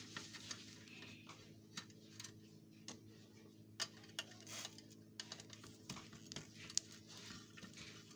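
Faint, irregular clicks and taps of a screwdriver and small metal and plastic parts as the screws holding a computer monitor together are undone, over a low steady hum.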